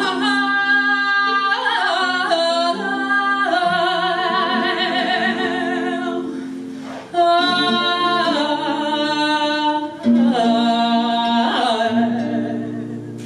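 Female flamenco cante singing in a caña: long, drawn-out melismatic phrases with a wavering vibrato, in three breaths, over sustained instrumental accompaniment.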